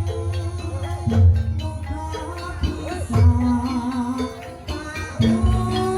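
Live jaranan accompaniment music: a Javanese gamelan-style ensemble with sustained ringing pitched tones, a wavering melody line above, and deep low strokes about every two seconds.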